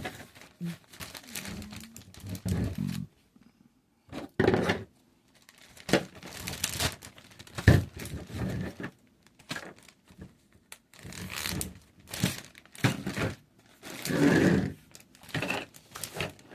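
Action-figure packaging being handled, plastic and cardboard crinkling and tearing in irregular bursts, with several short silent gaps.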